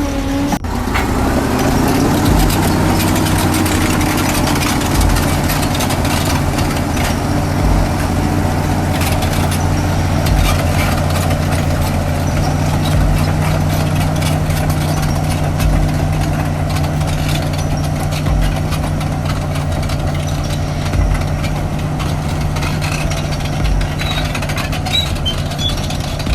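Heavy diesel machinery running steadily under load, with a low, even engine note and a low thump about every two and a half seconds.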